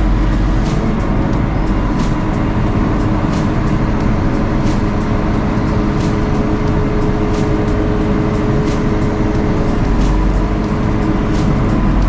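Diesel engine of a JCB 3CX backhoe loader running at steady revs, with a steady whine over it, while the backhoe arm is moved slowly and finely on the joysticks.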